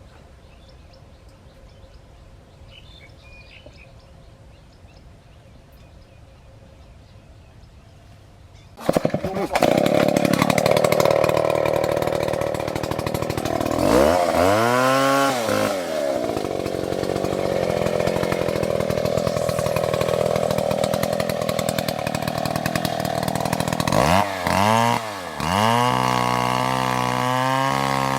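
A chainsaw starts up suddenly about nine seconds in, after a quiet stretch, and runs at high revs. Around the middle its engine drops briefly and climbs back up, and near the end it is revved up and down several times in quick succession.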